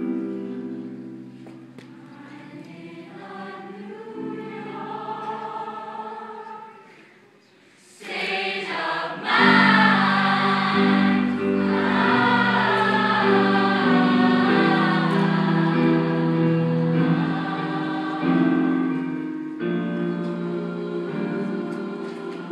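Mixed show choir singing held chords, softly for the first several seconds, then swelling into a loud, full chorus about eight seconds in, with low voices joining soon after.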